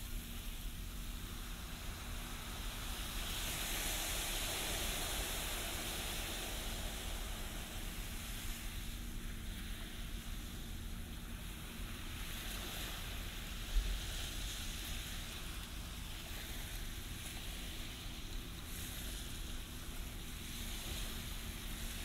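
Small ocean waves breaking and washing up a sandy beach: a steady hiss of surf that swells every few seconds as each wave comes in, over a low rumble of wind on the microphone. A brief thump stands out about two-thirds of the way through.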